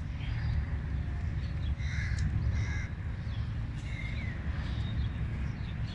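A few short bird calls, some in quick pairs about every two seconds, over a steady low rumble.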